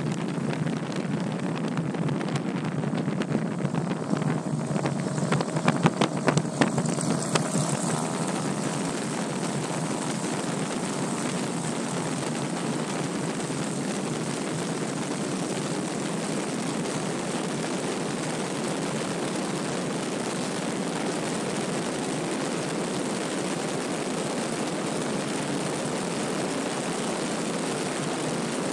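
Piper PA-32 single-engine propeller plane on its takeoff roll: engine and propeller at full power with wind rushing over an exterior-mounted camera. A few sharp knocks come about four to seven seconds in, after which the hiss grows brighter and holds steady.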